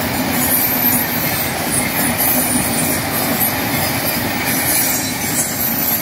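Passenger train of LHB coaches rolling past on the track: the steady noise of wheels on rail, with a high hiss over it.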